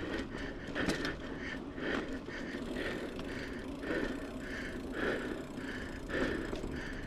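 Mountain bike riding over a dirt trail: tyre and bike rattle noise with the rider breathing hard in a steady rhythm.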